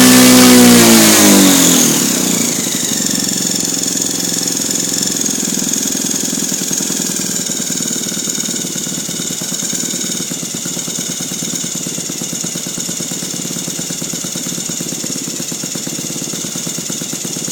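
Saito FG-36 single-cylinder four-stroke petrol model-aircraft engine throttled back from high revs: its note falls in pitch and level over the first two seconds, then it runs steadily at a low speed with a fast, even pulse.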